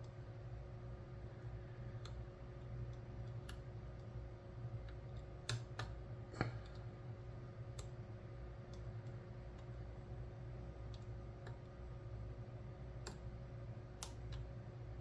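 Light, irregular metal clicks of a lock pick and tension wrench working the pins of a five-pin challenge lock, with one sharper click about six and a half seconds in, over a steady low hum.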